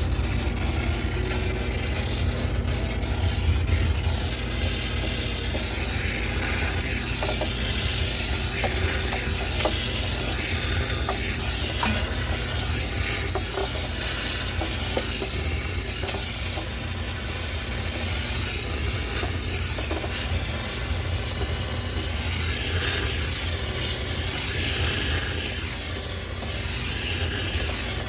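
High-pressure steam cleaner running steadily on a sneaker washing machine: a continuous hiss of steam over a low machine hum, with scattered clicks and rattles.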